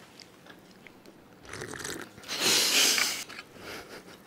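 Crispy fried food crunching as it is bitten and chewed close to an ASMR microphone. The crunch starts about a second and a half in and is loudest a little after two seconds.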